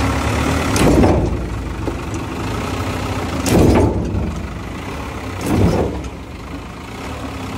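An engine idling steadily under three loud, sharp metal strikes about two seconds apart, each with a short ring.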